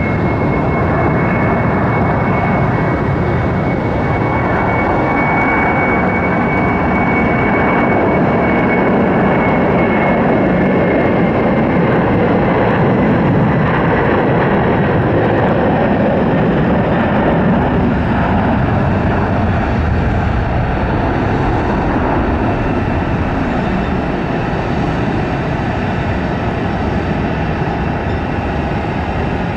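A jet airliner's engines running loud and steady, the noise swelling to a peak around the middle and slowly easing off, as an aircraft passing close by. A thin high fan whine sounds over the first ten or so seconds, sinking slightly in pitch.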